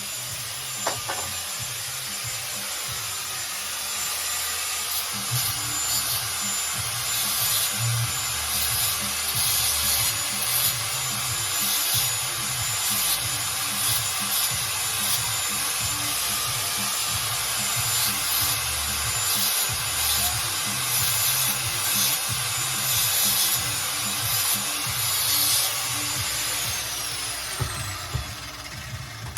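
Grinder cutting metal: a high, steady motor whine over a gritty cutting rasp, with the tone sliding down near the end as the disc spins down.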